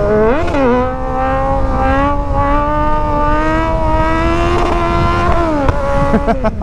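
Kawasaki Z900's inline-four engine running hard at highway speed, its pitch jumping about half a second in, then climbing steadily for several seconds before dropping off near the end, followed by a few sharp clicks. Wind rushes heavily over the microphone.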